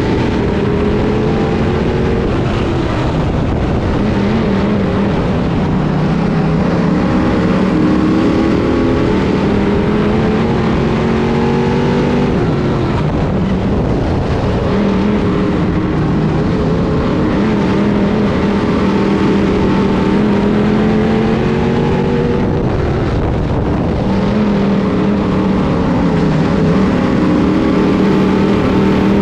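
In-car sound of a 602 Sportsman dirt modified's GM 602 crate small-block V8 racing, its pitch climbing steadily and then dropping sharply about every nine to ten seconds as the driver accelerates and lifts through the laps, over steady rushing noise.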